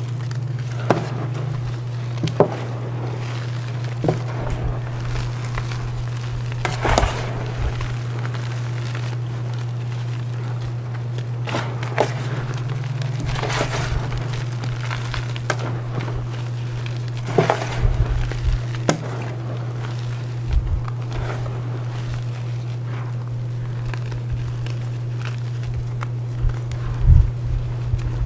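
Reformed gym chalk crumbled and crushed by hand into powder: scattered sharp crunches and gritty crackles, over a steady low hum.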